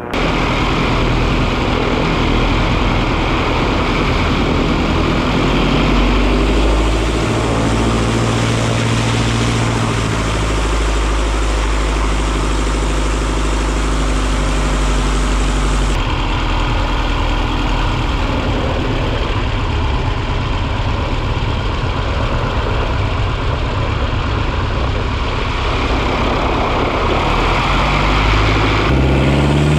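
Single-engine light plane's piston engine and propeller running at taxi power. The engine note is steady but rises and falls a little with the throttle, and it shifts abruptly twice.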